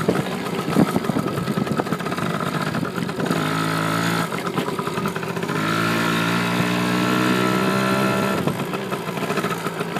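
Dirt bike engine running under way, its pitch held steady for a few seconds at a time, about three seconds in and again from just before six seconds to past eight, with rough, choppy stretches between where the throttle changes.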